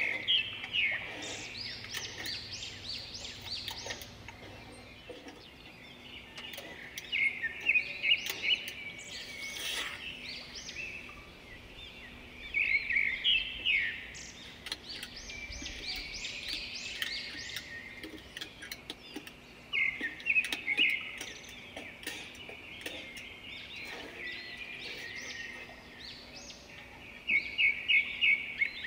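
A songbird singing, repeating short phrases of rapid high chirping notes about every six to seven seconds.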